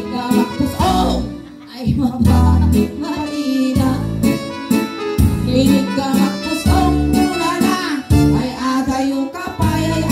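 A woman singing into a microphone over amplified band music, with sustained bass notes under the vocal.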